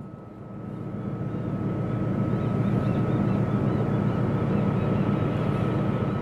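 Low, steady engine rumble of a cargo ship passing close by. It swells over the first couple of seconds, then holds steady, with a faint thin whine above it.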